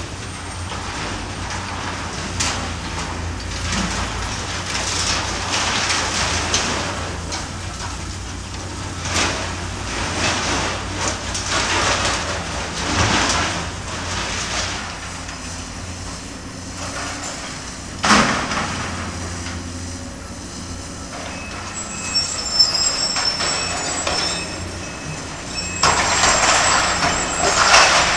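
Caterpillar excavator's diesel engine running steadily while its demolition grapple crunches and tears through a warehouse's roof trusses and corrugated metal. The crashes come again and again, with a sharp bang about two-thirds of the way through, high squealing a little later, and the heaviest crashing near the end.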